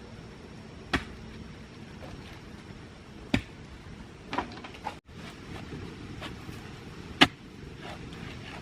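Five sharp knocks at irregular intervals of one to two seconds, the loudest near the end, over a steady background hiss.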